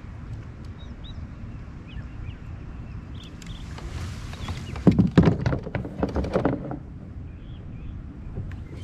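A burst of knocks and clattering about five seconds in, lasting under two seconds, from a fishing rod and reel being handled on a kayak, over a low steady rumble.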